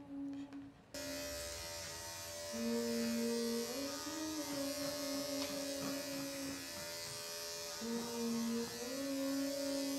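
Electric dog grooming clippers switched on about a second in, then running steadily as they cut through the dog's hair.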